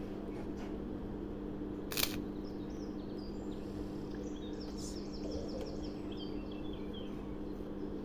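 Steady low electrical hum with a single sharp click about two seconds in; a small bird chirps a quick trill around the middle.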